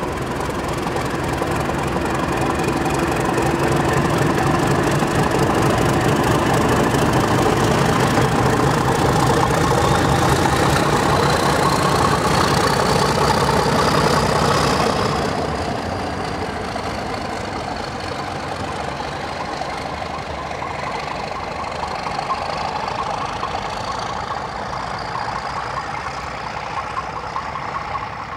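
British Rail Class 31 diesel locomotive D5613, its English Electric V12 engine running as it moves along the track, with a whine rising slowly in pitch. About halfway through the sound changes abruptly to another diesel locomotive, quieter, drawing away under power with a steady high whine.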